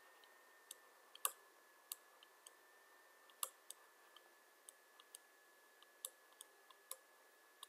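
Faint, irregular clicks of a stylus tapping on a tablet as words are handwritten, over a faint steady high-pitched whine.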